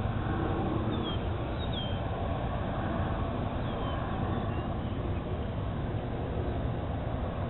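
Steady low rumble of an Airbus A300-605R freighter's jet engines at taxi, heard from far off across the airfield. A few faint, high bird chirps come through over it.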